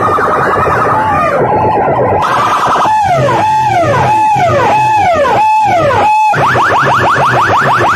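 Electronic siren-effect tones blasted very loud through a bank of aluminium horn loudspeakers. Fast repeating rising chirps give way, about three seconds in, to six or so falling whoops about half a second apart, then switch back to fast rising chirps.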